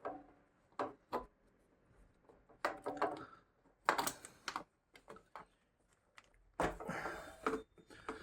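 Irregular clicks, knocks and short rattles of plastic and metal parts being handled as the exhaust servo motor and its wiring are worked free from a Suzuki GSX-S1000.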